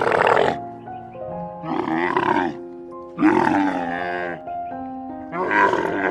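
Camel calling: a series of loud, drawn-out calls about a second long, each with a short gap before the next, over background music with held tones.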